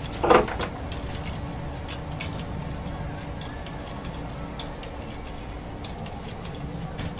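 Lego Technic plastic parts clicking as a part-transfer mechanism is cranked by hand, with one louder clack about a third of a second in and then sparse light ticks.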